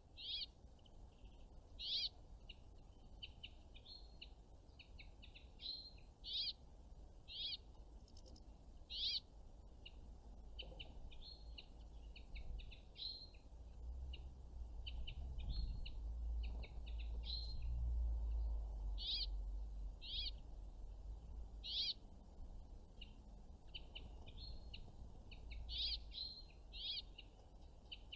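Small songbirds giving short, high chirping calls, one to several every second at irregular intervals. A low rumble swells and fades in the middle.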